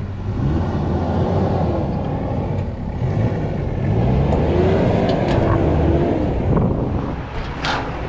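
4x4 off-road vehicle engine revving up and down repeatedly under load as it works through an obstacle, with a brief sharp click near the end.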